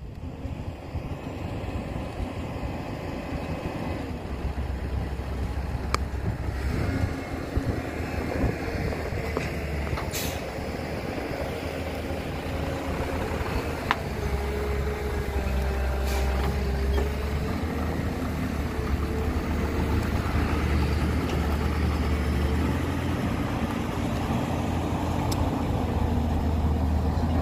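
Heavy diesel construction machinery running steadily with a deep low rumble and a shifting engine note, with a few sharp knocks.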